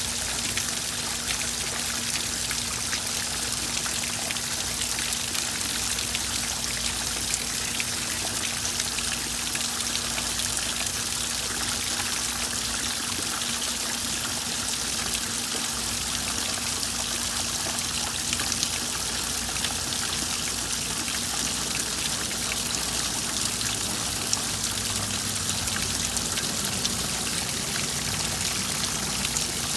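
Garden rock waterfall, thin streams of water falling over stacked stones and splashing steadily into a koi pond, with many small splashes and a faint steady low hum underneath.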